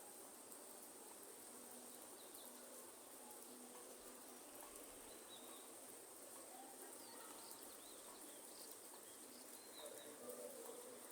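Faint rainforest ambience: a soft, steady hiss of light rain under a constant high insect drone, with scattered short bird chirps.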